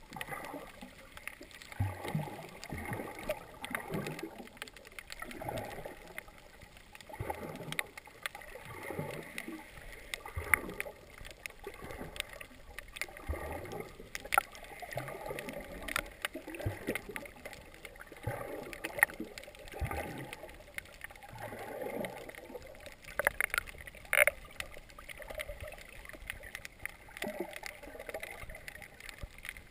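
Muffled underwater water noise on a camera in a waterproof housing: swishing surges that come every second or two, with scattered sharp clicks.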